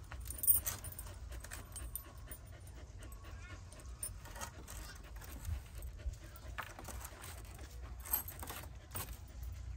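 Siberian husky panting with its tongue out, with a few short sharp taps, the loudest about half a second in.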